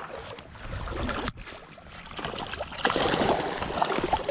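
Water splashing as a hooked rainbow trout thrashes at the surface close to the angler while being brought to the net, louder from about three seconds in. A single sharp knock comes a little over a second in.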